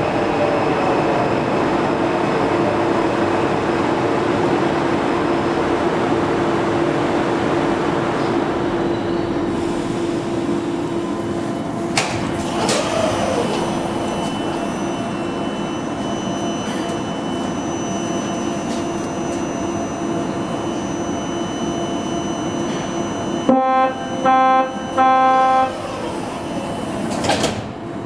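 Alstom Metropolis metro train's steady motor whine fading as it brakes to a stop, then a sharp clunk about twelve seconds in as the doors open. Near the end the door-closing chime beeps three times and the doors shut with a thud.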